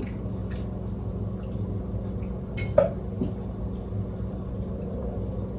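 Light clicks and taps of cutlery and plates at a meal over a steady low hum, with one sharper click about halfway through.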